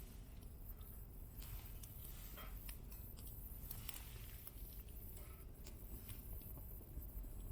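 Small wood fire crackling: scattered sharp pops and ticks over a low steady rumble.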